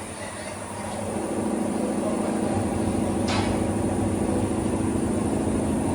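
Vehicle engine running steadily with a low rumble that builds over the first second, and one short sharp hiss a little after three seconds in.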